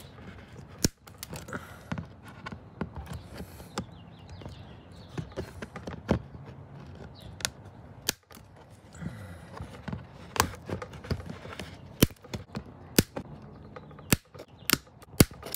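Hand snippers clipping off the protruding ends of wire plastic-welding staples set in a trim panel: a dozen or so sharp metal snips, spaced irregularly about a second apart.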